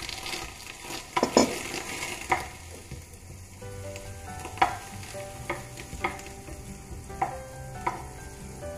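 Butter sizzling as it melts in a nonstick frying pan, stirred with a spoon that knocks and scrapes against the pan about once a second.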